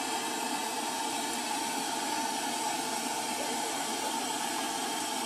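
A steady, even rushing hiss with no separate knocks or tones, strongest in the low-middle range.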